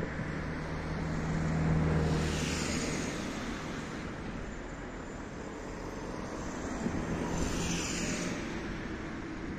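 Steady drone of road traffic, with one vehicle passing close about two seconds in and another near the end.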